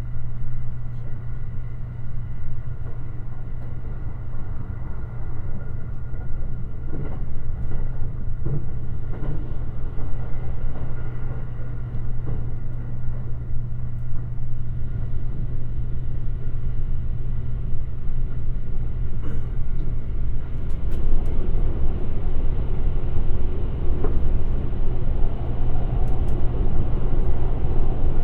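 Limited express electric train running at speed, heard from inside: a steady low rumble of wheels on rail with faint steady tones above it and occasional clicks. The rumble grows louder and rougher about two-thirds of the way in.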